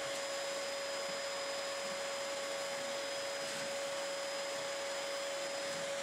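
Dyson DC28 upright vacuum running steadily through its wand and flat-out floor tool: an even rush of air with a steady whine, at a constant low level.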